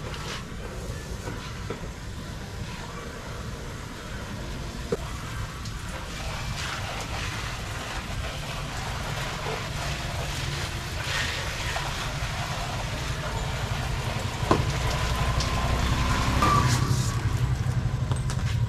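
A motor vehicle running: a steady low rumble that grows a little louder toward the end, with a couple of sharp clicks.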